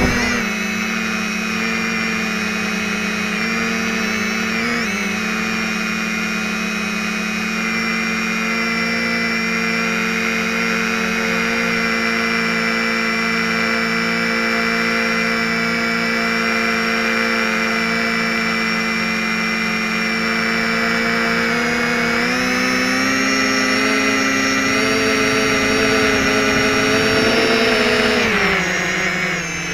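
Quadcopter's SunnySky X2212 brushless motors and propellers whining steadily in flight, the pitch stepping up about two-thirds of the way through and falling away near the end.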